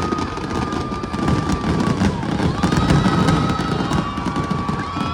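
Fireworks going off in rapid succession: a dense, continuous crackling and popping. A held high tone comes and goes over it every couple of seconds.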